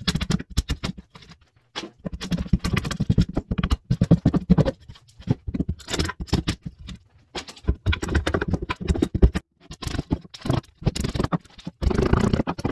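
Hammer driving a wood chisel through the saw-kerfed slices of a notch in a softwood leg, the thin wood slices snapping off, with the chisel scraping as it pares the notch floor. The taps come in quick runs broken by short pauses.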